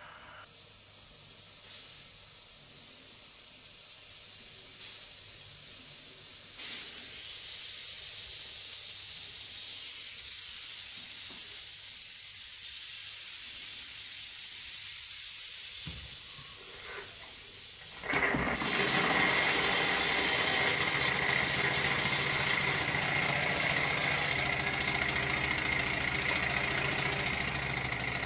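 Steam hissing from a small electric model boiler's valve. The hiss starts about half a second in and grows louder about six seconds in. About 18 seconds in, the Chiltern Mill Single model steam engine starts running on the steam, and the sound turns fuller and louder over the hiss.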